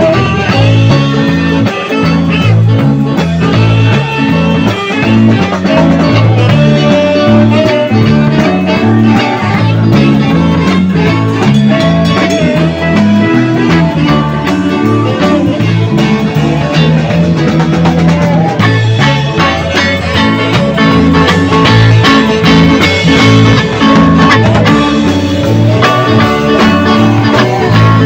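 Live band jamming, with electric guitars playing over a low bass line.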